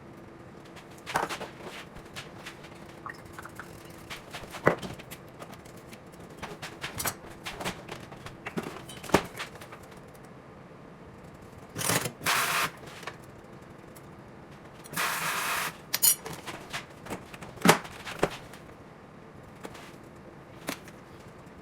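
Kitchen handling sounds: scattered clinks, knocks and scrapes of utensils and dishes, with two short bursts of hiss, about twelve and fifteen seconds in, over a faint steady hum.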